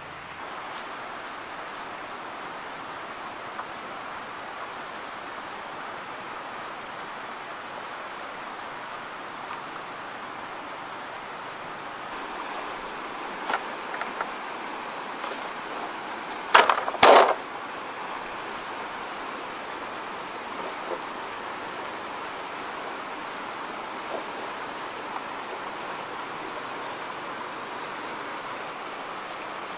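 Steady high-pitched drone of insects throughout. About halfway through comes a short, loud cluster of hollow wooden knocks from handling dry bamboo poles, with a few lighter clicks just before it.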